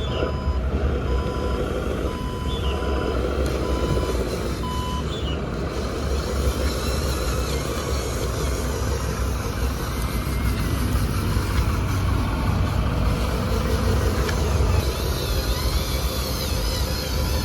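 Radio-controlled truck's simulated engine sound running steadily, with a reversing beeper sounding about six short beeps over the first five seconds.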